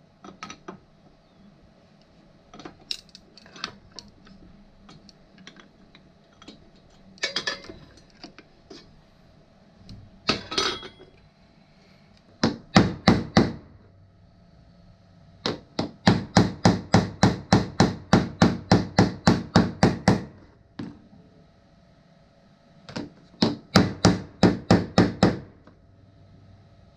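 Hammer blows on parts being driven together. Scattered knocks come first, then three runs of rapid strikes at about four a second; the middle run is the longest, at about twenty blows.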